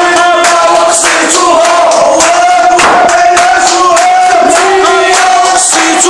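A crowd of protesters chanting slogans together in unison, loud and steady.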